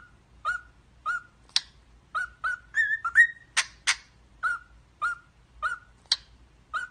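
Cockatiels chirping: a run of short, separate calls, about two a second, with a few sharper, higher-pitched calls mixed in.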